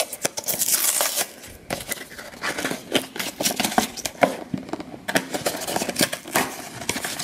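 Cardboard Funko Mystery Mini blind box being opened by hand: its tucked flap is pried up and torn, with a close run of clicks, scrapes and rustles of thin cardboard.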